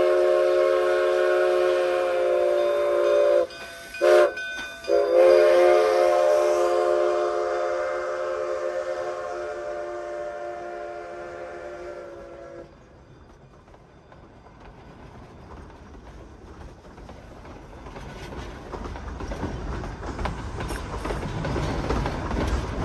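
Steam whistle of Baldwin K36 2-8-2 locomotive No. 484 sounding a chord: a long blast, a short toot about four seconds in, then another long blast that fades and stops about halfway through. After it, the narrow-gauge train's cars rumble and click, growing louder as they roll closer.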